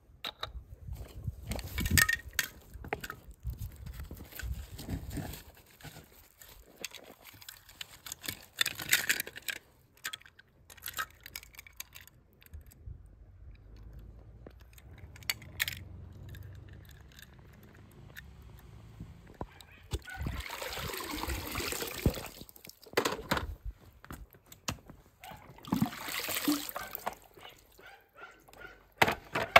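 Plastic and die-cast toy cars being handled on wet stone: scattered clicks and knocks, with a couple of longer bursts of sloshing, splashing water in the second half.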